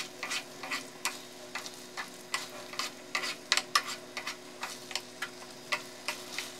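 Wooden cooking chopsticks clicking and scraping against a nonstick frying pan as fusilli, minced beef and tomato sauce are tossed together, in irregular taps about three or four a second, over a faint sizzle from the pan.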